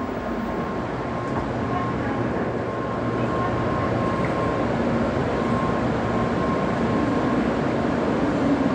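Shinkansen train noise on a station platform: a steady rumble that grows gradually louder, with a faint steady tone running through it.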